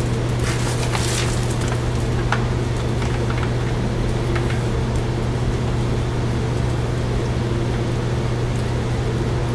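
A steady low hum, with a few light clicks and taps of metal hardware being handled as an exhaust clamp is fitted.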